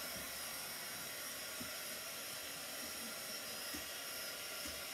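Craft heat gun running with a steady hiss of blowing air, drying paint on a freshly painted ornament.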